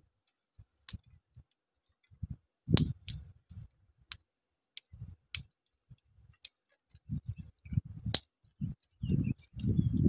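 Dry sticks of firewood knocking and clattering against each other as they are laid by hand onto a pile: irregular wooden knocks and sharp clicks with pauses between, loudest about three seconds in and again near eight seconds.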